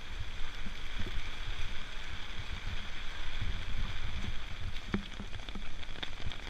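Heavy rain falling steadily, with a low uneven rumble underneath and a few sharp ticks about five and six seconds in.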